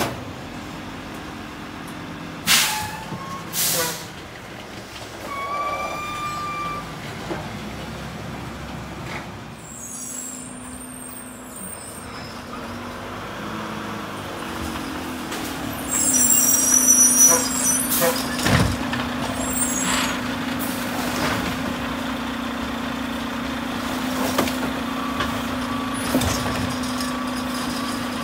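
Mack LR garbage truck with a Heil Multipack rear-loader body: two sharp clanks a few seconds in, then air brakes hissing as the truck moves off. Its engine runs with a steady hum, louder for the second half as it drives forward.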